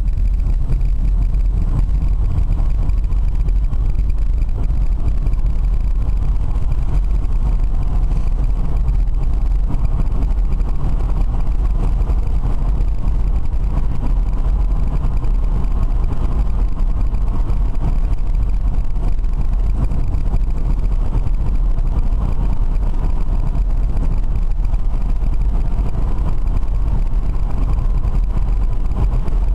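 Steady road and wind noise inside the cabin of a moving BMW converted to electric drive, a constant low rumble with no engine note.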